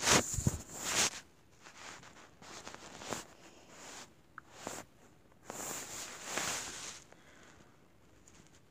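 Irregular rustling and brushing noises from the phone being handled close to its microphone: short bursts near the start and around three and four and a half seconds in, and a longer one from about five and a half to seven seconds.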